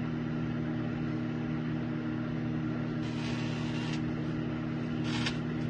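Microwave oven running with a steady hum, with metal objects inside. Two brief patches of hiss come about three seconds in and near the end.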